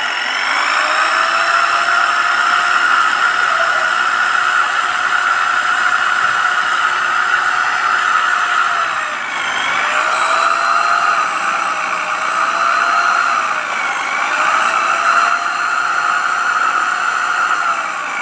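Golden Bullet 750 W corded hammer drill running at speed while boring a hole in a wooden plank, a steady high motor whine. The pitch dips and recovers about four times, around the middle and again near the end.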